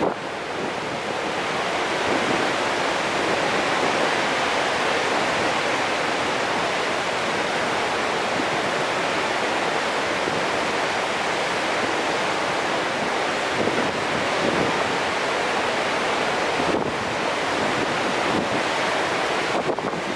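The High Falls of the Genesee River, a large waterfall, rushing steadily.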